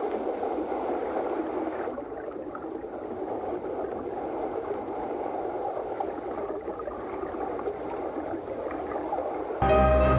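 Flowing water, a steady rushing noise. Background music starts abruptly near the end.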